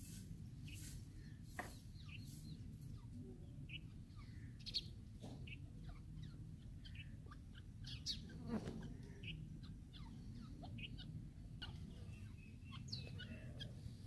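Grey francolins giving soft, short chirping calls, scattered irregularly, over a low steady background rumble.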